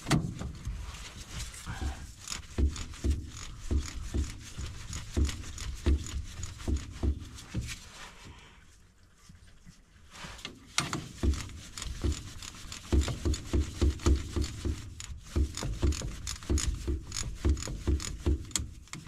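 Steel wrench working the bolts of a hydraulic hose flange: a run of short metal clicks and knocks, several a second, easing off briefly about halfway through.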